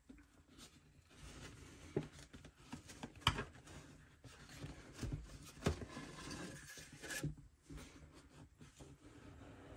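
Card sleeve sliding off a watch box by hand: uneven papery rubbing and rustling, with a few light knocks of the box in the hands.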